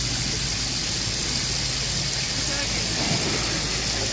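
Chicken pieces deep-frying in a pan of hot oil over a charcoal fire: a steady sizzling hiss.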